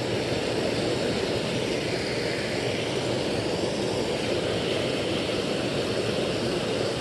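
Small creek waterfall rushing: a steady, even wash of falling water.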